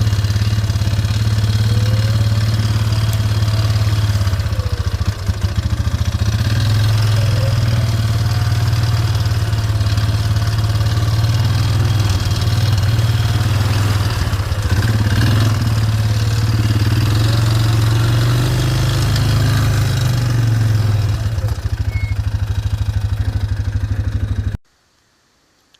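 Small petrol engine running steadily at a low, even pitch, then cutting off abruptly near the end.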